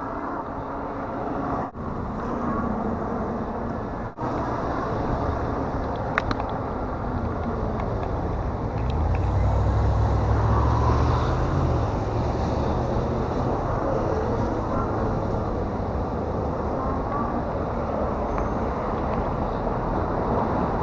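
Steady outdoor road and wind noise, a continuous low rumble that swells louder for a few seconds about ten seconds in.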